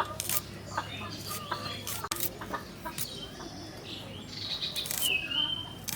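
Chickens clucking and small birds chirping, among scattered sharp clicks and knocks, with a brief high call about five seconds in.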